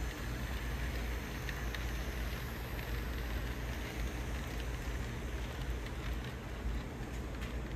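HO scale model freight train, hauled by a GP38-2 diesel locomotive model, rolling along the track: a steady low hum and rumble with a patter of small clicks from the wheels on the rails.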